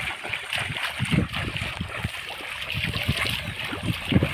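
Shallow muddy pond water sloshing and splashing as a mosquito net is dragged through it and people wade, in irregular surges.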